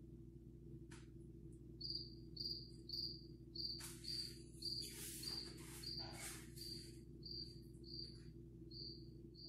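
Recorded cricket chirping played from a smartphone: short high chirps about two a second, starting about two seconds in. A few bursts of rustling noise come through in the middle, over a steady low room hum.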